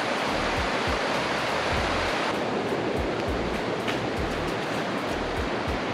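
Mountain river rushing over a rocky bed: a steady hiss of fast water, with low rumbling underneath.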